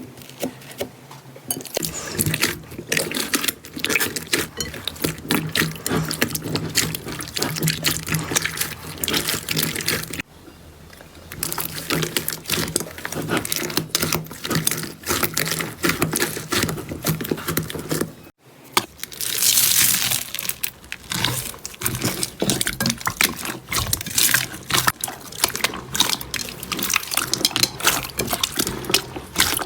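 Slime being squished and stretched, a dense run of wet clicking and popping, with brief breaks about ten and eighteen seconds in.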